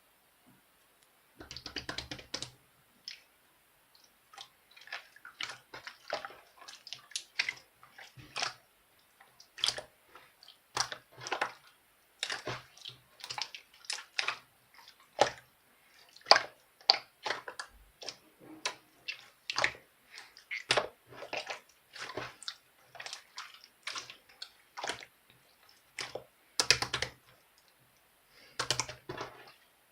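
Clear mixed slime being squeezed, poked and stretched by hand, making irregular wet clicks and pops.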